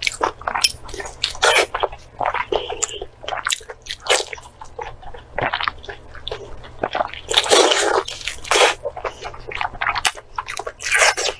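A person chewing and biting steamed pork intestine in irregular short bursts, with a longer, louder stretch about seven to eight and a half seconds in.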